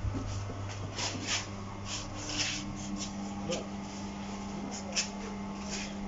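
Wheel balancing machine spinning a 265/65 R17 tyre and wheel for a balance measurement: a steady motor tone comes in about a second and a half in and holds until the end. A few short hissing noises come over it.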